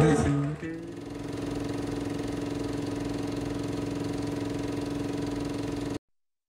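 Rock music breaks off in the first second, then a steady, buzzing electric hum from the stage amplification holds at an even pitch for about five seconds before cutting to dead silence near the end.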